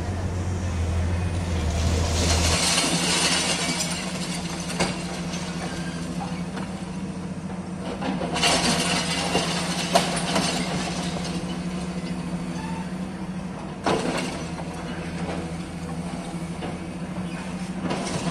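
Demolition excavator engine running steadily while broken concrete rubble clatters and crashes as its long-reach arm works the pile. Several sharp knocks come through, the loudest about ten seconds in.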